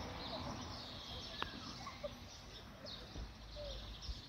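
Birds chirping faintly in short scattered calls over outdoor background noise. A single sharp click comes about a second and a half in, and a low rumble comes near the end.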